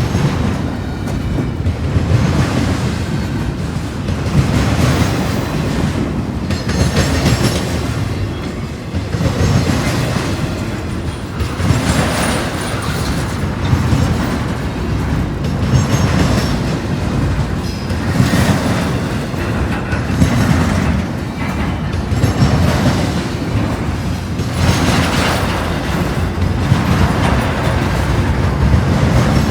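A train rolling past, its wheels giving a steady rumble with a clickety-clack over the rail joints every second or two.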